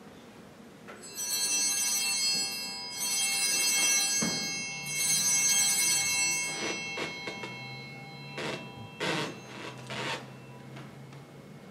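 Altar bells rung in three bright, ringing shakes at the elevation of the host, the signal of the consecration. A few soft knocks follow.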